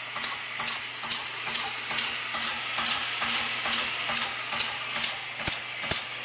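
Air hammer running steadily, its ram cycling with a light regular clack about twice a second over a continuous hiss of compressed air. It is running smooth and quiet.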